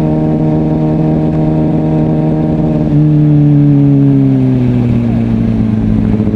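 2005 Kawasaki ZX-6R 636's inline-four engine running at steady revs. About halfway through it gets louder, then the revs fall away smoothly to a lower, steady note.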